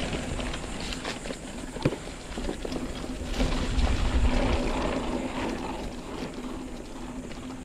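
Santa Cruz Chameleon hardtail mountain bike rolling over sandy, leaf-covered singletrack: tyre noise with scattered clicks and rattles from the bike over small bumps, and wind rumbling on the microphone, strongest about halfway through.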